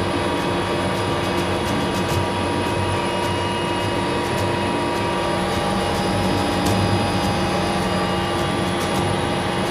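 Helicopter in flight heard from inside the cabin with the side door open: a steady whine of several held tones over a dense, unbroken rotor and engine noise.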